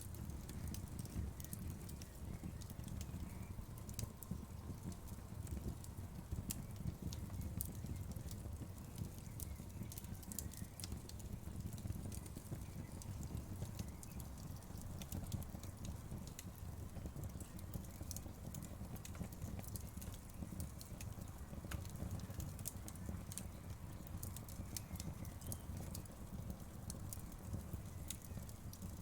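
Wood fire burning in a fireplace: a steady low rumble of flames with frequent small, sharp crackles and pops of burning wood.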